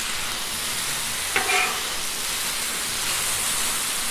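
Chicken strips sizzling on a Blackstone griddle's steel flat-top as two metal spatulas turn and pile them, a steady frying hiss. A short metallic spatula scrape rings out about a second and a half in.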